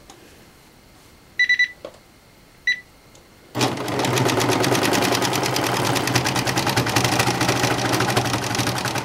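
Two short high beeps, the first about a second and a half in and the second near three seconds. Then a Janome CompuLock serger starts about three and a half seconds in and runs steadily at speed, with a fast, even stitching rhythm, sewing a four-thread overlock seam through thick terry cloth.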